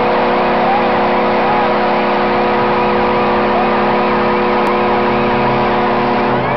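Hockey arena goal horn sounding a steady multi-note chord over a cheering crowd, signalling a home-team goal; the horn cuts off near the end.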